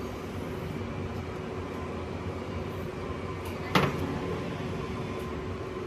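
Steady hum of factory machinery, with one sharp knock a little under four seconds in.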